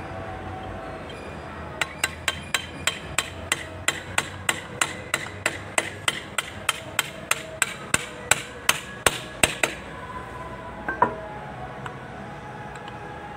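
Hammer tapping metal in a quick, even series, about three to four strikes a second for some eight seconds, then one more knock. The taps drive a ball bearing on a tractor transmission shaft down into its bore in the gearbox case.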